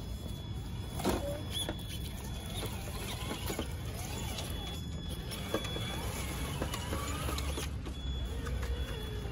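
Traxxas TRX-6 6x6 RC crawler's electric motor and gear drive whining at low, varying speed as it crawls over tree roots, with a couple of sharp knocks, about a second in and a little past the middle.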